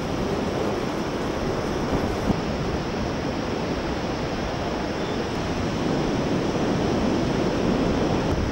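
Steady, even rushing noise of wind across the microphone and the white-water river in the gorge below, with a couple of light knocks about two seconds in.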